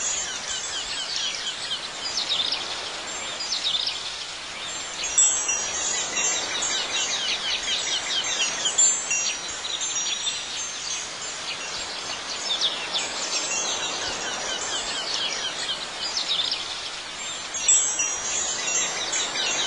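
Tinkling wind chimes and high chirping calls over a light hiss, an outdoor ambience. The ringing grows brighter about five seconds in and again near the end.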